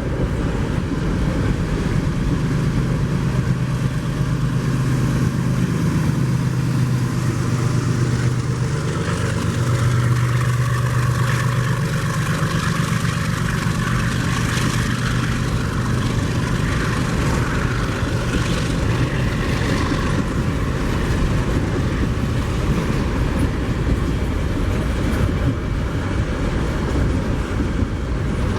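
Freight train passing: the steady hum of a diesel locomotive engine over the continuous rumble of rolling rail wagons, with the engine hum fading about two-thirds of the way through.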